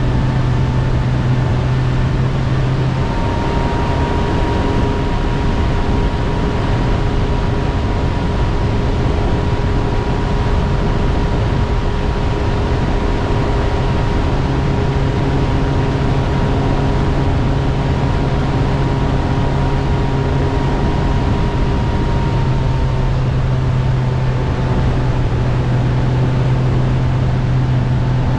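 Bass boat's outboard motor running steadily at speed, with a constant rush of wind and water over the hull.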